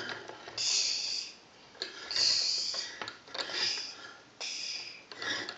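A young child making short breathy, hissing noises with his mouth, about five in a row with brief pauses between.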